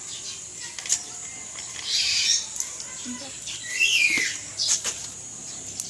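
Slime being squeezed and stretched in the hands, giving sharp popping clicks and short squeaky bursts, one falling in pitch.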